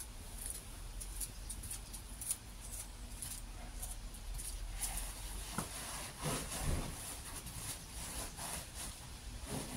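Nylon scooter cover rustling and rubbing in short irregular scrapes as it is handled, over a low steady rumble.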